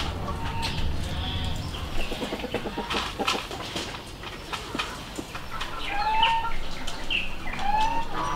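Two short rising animal calls, farm fowl or livestock, about two seconds apart, over a background of faint clicks.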